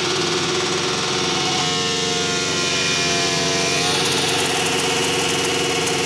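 Oil-cooled Suzuki GSX-R inline-four motorcycle engine idling steadily while it warms up.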